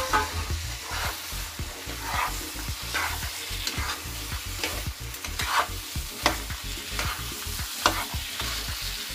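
Spatula stirring and scraping chickpeas and potato cubes around a non-stick kadhai, with the masala sizzling over a high gas flame; the scraping strokes come about once a second. This is the bhuna stage, frying the chickpeas and potatoes in the spice paste.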